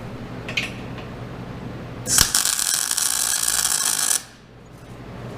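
Welding arc crackling for about two seconds as a tack weld goes onto the steel frame of the attachment, starting and stopping abruptly over a steady low hum.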